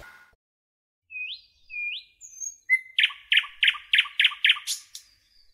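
Small cage birds chirping: a few separate rising chirps, then about three seconds in a quick run of about seven sharp chirps.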